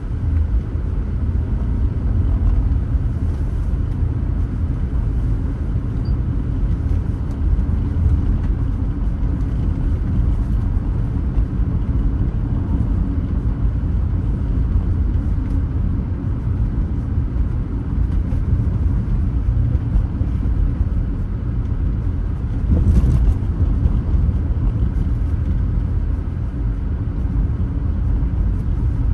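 Car driving along a road: steady low rumble of engine and tyres. A short louder swell about three-quarters of the way through.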